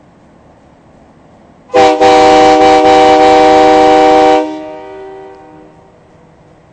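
Truck-mounted Hornblasters air train horn giving one very loud blast of about two and a half seconds, several notes sounding together as a chord. After the blast cuts off, its lower notes fade out over about a second and a half.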